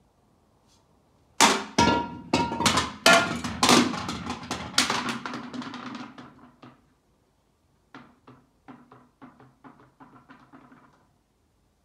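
Hollow mannequin heads knocking together and clattering on the floor as a mannequin head swung on a chain strikes them and topples some. A burst of loud knocks begins about a second and a half in and thins out, then a lighter run of knocks comes near the end.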